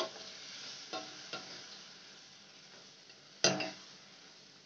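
Perforated steel spoon stirring and scraping grated mango in an iron kadai, with the oil sizzling steadily underneath. A couple of light clinks come about a second in, and a louder metal clank against the pan with a brief ring comes a little past three seconds.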